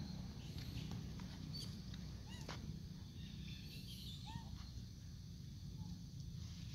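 Long-tailed macaques giving a few faint, short squeaks and chirps over a steady low outdoor rumble.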